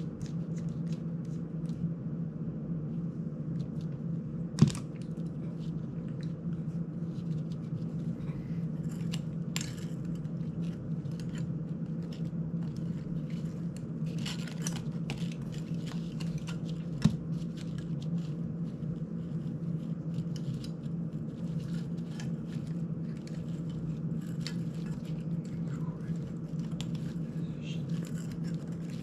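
Small clicks and taps of a screwdriver, tiny screws and drone frame parts being handled on a workbench, over a steady low hum. Two sharper knocks, about five seconds in and again about seventeen seconds in.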